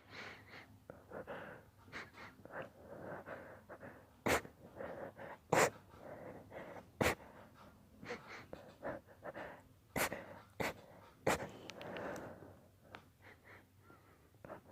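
A man in a deliberately induced sneezing fit: about six short, sharp sneezes, with breathy inhales and gasps between them.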